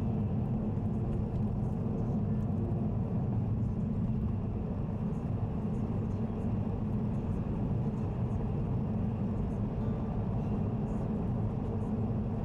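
Car driving on an expressway: a steady low rumble of tyres and engine at cruising speed, even throughout with no sudden events.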